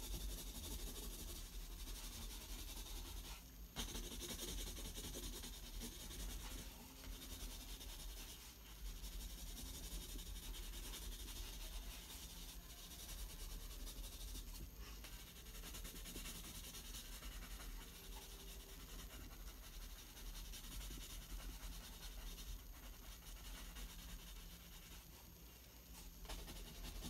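Koh-i-Noor Triograph 2B graphite pencil scratching steadily on paper as a sphere is shaded in with continuous back-and-forth strokes.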